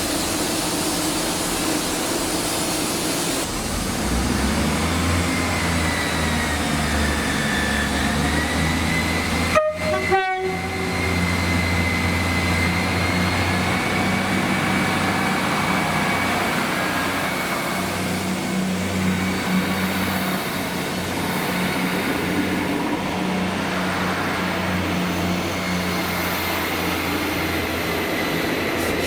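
Two coupled ScotRail Class 158 diesel multiple units running steadily, their diesel engines droning with a thin whine over the top. About ten seconds in, a short two-note horn sounds, high then low.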